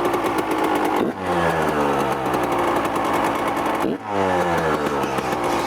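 Yamaha YZ125 two-stroke dirt bike engine running at high revs, its pitch dropping and falling away twice: about a second in and again about four seconds in.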